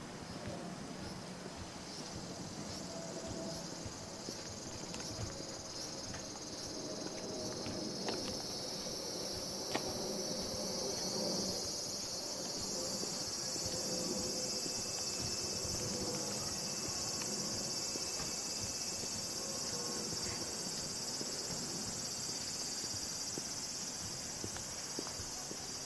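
Insects chirring in a steady high-pitched drone that swells about ten seconds in and then holds, with soft footsteps of someone walking underneath and a single sharp click near the middle.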